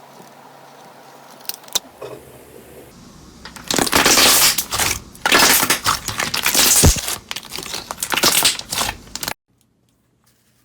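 Slime being squeezed and pressed by hand, giving dense crackling and crunching in loud bursts from about four seconds in. The sound cuts off suddenly near the end.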